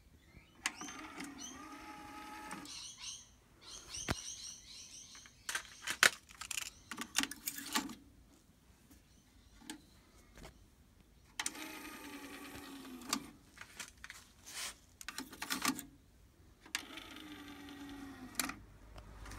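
Technics RS-TR373 double cassette deck being operated: sharp clicks and clunks from its transport buttons and cassette doors, with short whirring spells of a second or two as the tape mechanism engages.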